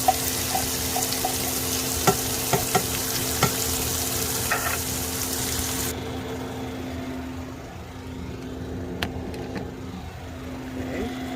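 Onions and garlic sizzling in a frying pan as tomato sauce goes in, with a few taps of a utensil against the pan. About six seconds in the high sizzle drops off sharply, leaving quieter cooking sounds over a steady low hum.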